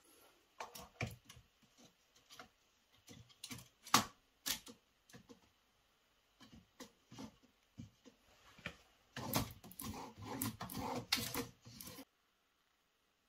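Irregular light knocks and taps as a thin framed filter panel is handled and fitted against the underside of a wooden kitchen cabinet. There is a busier run of knocks and rustling about nine seconds in, which cuts off abruptly about twelve seconds in.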